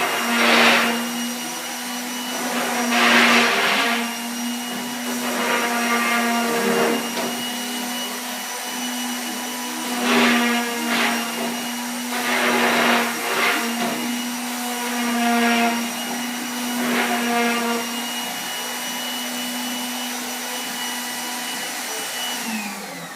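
Electric power sander running steadily, with repeated louder rasping surges as it is pressed onto the wood. Near the end it is switched off and winds down.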